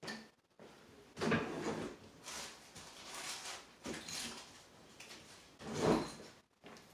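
Handling noises from small objects being worked by hand near the microphone: irregular rustles and scuffs, the loudest about a second in and again near the end.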